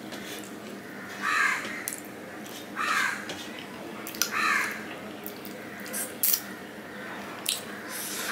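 A crow cawing three times, one call roughly every second and a half, over sharp wet smacks and slurps of someone eating thin curry gravy with the fingers.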